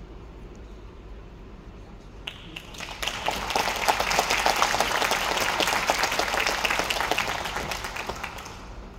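Audience applauding. The clapping begins about three seconds in, builds quickly and dies away near the end.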